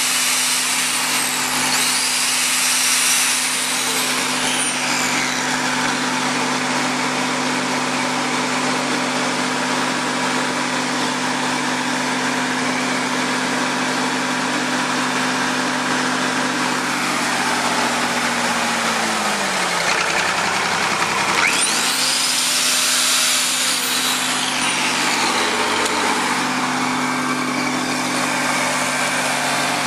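Lincoln SA-250 welder's diesel engine running its generator while an angle grinder with a wire cup brush runs off the generator's power, testing whether the freshly cleaned commutator and brushes now make electricity. About two-thirds of the way in the engine note sags and drops, then picks back up as the grinder's high whine spins up again.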